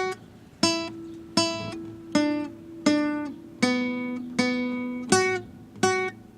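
Guitar strumming single chords about every three-quarters of a second as a song intro, each chord struck and left to ring out; the chord shifts lower in the middle.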